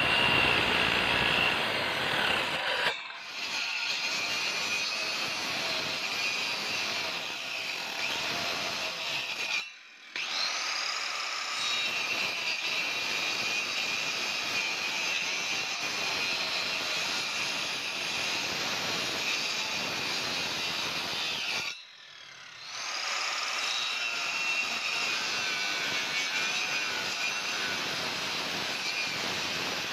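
Handheld electric circular saw running and cutting into a timber beam to form a long tenon, with a steady high whine. It drops out briefly three times, and after the later two it whines back up to speed.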